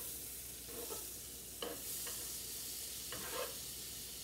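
Butter sizzling in a hot griddle pan with pancakes frying, as a spatula pushes through the butter and scrapes against the pan a few times.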